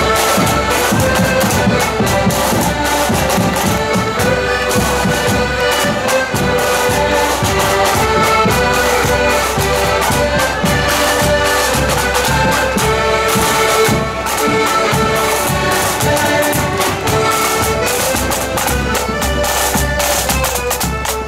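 A marching accordion band playing a tune, with bass drum and side drums keeping a steady march beat.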